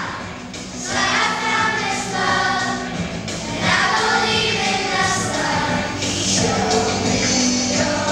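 A children's choir singing a song together over instrumental accompaniment.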